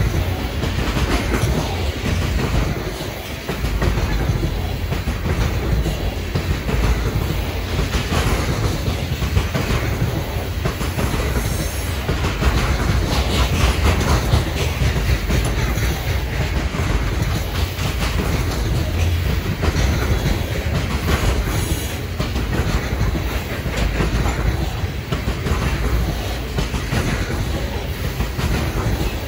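Freight train of covered hopper cars rolling past close by: a steady rumble, with the wheels clicking in a repeating rhythm over the rail joints.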